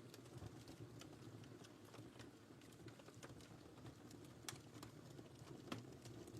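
Wood fire crackling in a fireplace: a faint, steady low rush of flames with scattered small pops and snaps, two of them louder in the second half.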